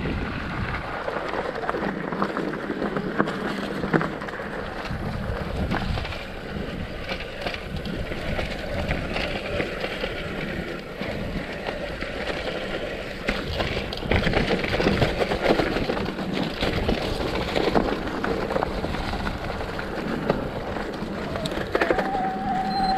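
Mountain bike descending a rough trail: tyres running over dirt and stones, with the bike rattling and knocking over bumps. A steady squeal starts near the end.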